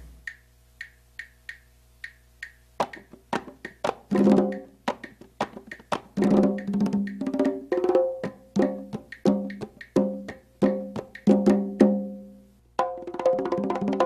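Pearl travel congas played by hand. A few light ticks, about two or three a second, lead in, and about three seconds in the drums enter with a fast groove of pitched open tones and slaps. The playing stops briefly near the end, then starts again.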